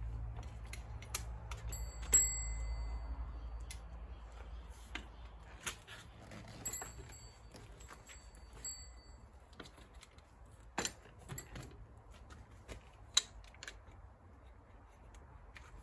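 Clicks, knocks and clacks of a Raleigh Swift folding bike being unfolded and set up, its frame and handlebar hinges and clamps being closed. Twice, a metal part rings out briefly, and there is a low rumble in the first few seconds.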